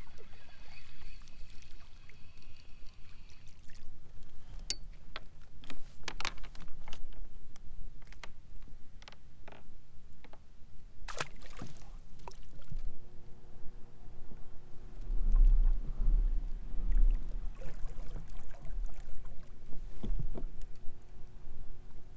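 Sharp knocks and clicks of tackle being handled aboard a plastic fishing kayak, over the faint wash of water against the hull, with a low rumble for a couple of seconds a little past the middle.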